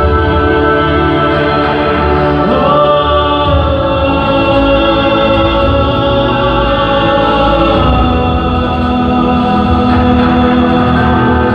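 Tenor singing long held notes live into a microphone over an orchestral backing track, with a rising glide about two and a half seconds in and a change of note about eight seconds in.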